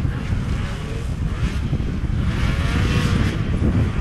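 Snowmobile engine running through a slalom, its pitch rising and falling as the rider turns, over a steady low rumble.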